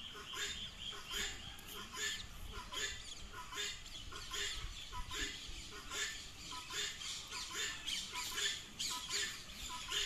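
Poultry calling in short, repeated squawks, about one or two a second, as birds feed on the ground.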